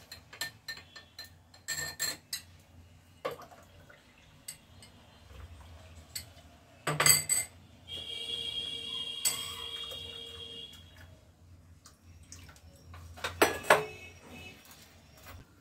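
Kitchen crockery and cutlery: cups, plates and spoons clinking and knocking against each other, louder clatters about seven and thirteen seconds in. Near the middle comes a steady hiss of a couple of seconds, like liquid being poured or a tap running.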